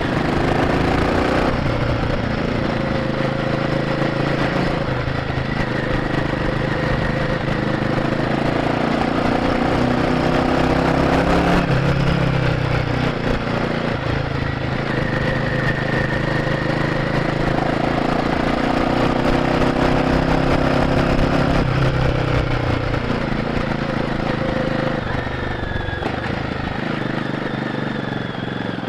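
Royal Enfield Guerrilla 450's single-cylinder engine running on the move through its stock exhaust, its pitch rising and falling several times as the throttle and gears change.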